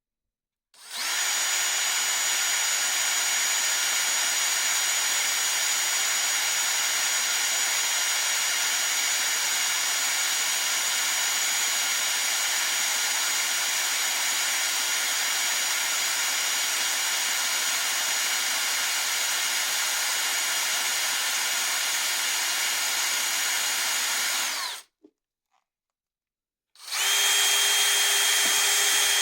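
Handheld electric power tool running at a steady speed for over twenty seconds, then stopping; after a short pause it runs again briefly at a slightly higher pitch.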